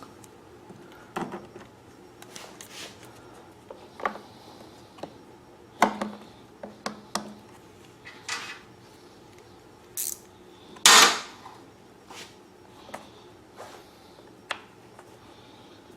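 Scattered clicks and clinks of a small steel bolt and hand tools being handled while the bolt is fitted to hold a generator fuel pump, with a louder, longer clatter about eleven seconds in.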